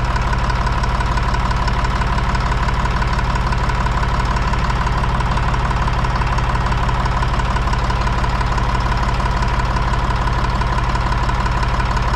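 Deutz-Fahr 55F Keyline tractor's diesel engine idling steadily, with an even whine over the low running, while its idle speed is being set.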